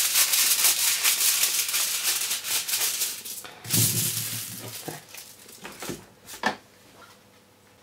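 Aluminium foil crinkling and crackling as scissors cut through the sheet, dense and busy for the first three seconds or so. Then the foil is handled and moved, with a few separate knocks, and the sound dies down near the end.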